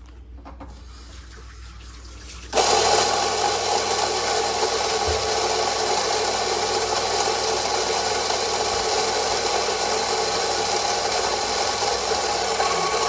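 Electric coffee grinder grinding espresso beans: the motor starts suddenly about two and a half seconds in and then runs steadily.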